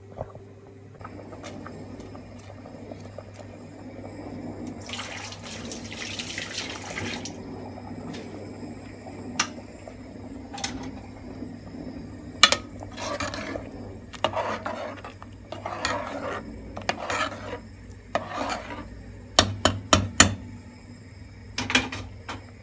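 Soup being stirred in a pot with a spoon: liquid sloshing in a run of repeated swishes, with sharp clinks of the spoon against the pot, several close together near the end. A low steady hum runs underneath.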